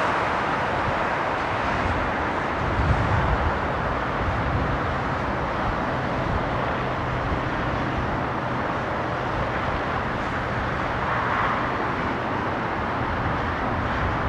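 Jet engine noise from a four-engined Boeing 747-400F climbing away after takeoff: a steady rushing roar with a low rumble beneath it, the higher hiss fading a little in the first second as the aircraft draws off.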